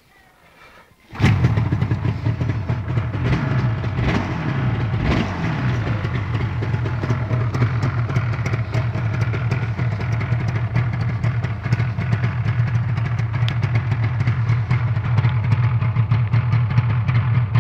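Yamaha RD350 YPVS two-stroke parallel-twin engine starting about a second in, on its first start of the year after standing. It is revved briefly a few times in the next few seconds, then settles into a steady idle.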